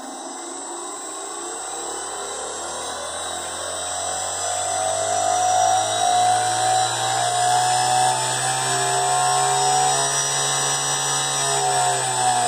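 Small brushless motor and propeller, driven by a Turnigy Plush ESC, whirring as the throttle is stepped up. The pitch and loudness climb steadily for about six seconds and then hold. About eleven seconds in, the pitch starts to fall as the throttle is ramped back down.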